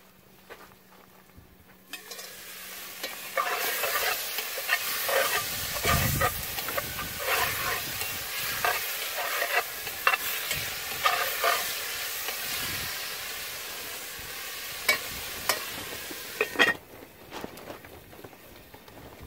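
Food sizzling in hot oil in a cast-iron Dutch oven over campfire coals, stirred and scraped with a metal spatula in many short strokes. The sizzle starts about two seconds in as the lid comes off. It stops sharply near the end, after a couple of clanks, as the lid goes back on.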